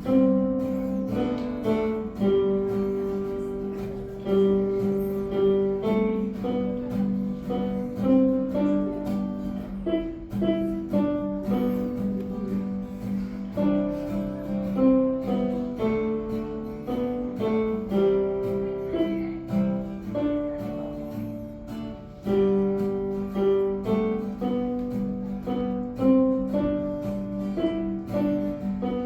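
Solo acoustic guitar plucking a simple melody over a steady repeated low note, the same phrase coming round several times.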